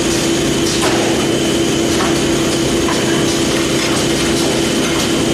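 A4 paper overwrapping machine running: a steady mechanical hum and whine with sharp clacks about once a second as the wrapping cycle repeats.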